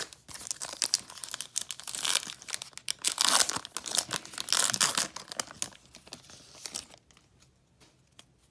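Crinkling and tearing of a foil trading-card pack wrapper as a pack of baseball cards is opened, a dense crackle that stops about seven seconds in.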